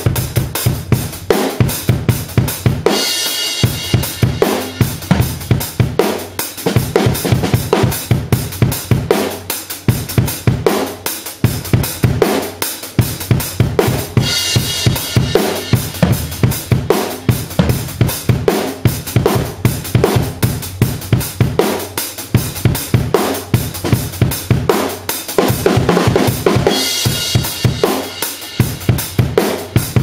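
Acoustic drum kit played in a steady, busy groove: bass drum, snare and cymbals struck several times a second. A cymbal crash swells three times, about every eleven seconds.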